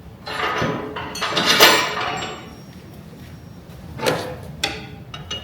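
A metal file being slid and scraped into a slot in a steel holder, two long scrapes, then a few sharp knocks near the end.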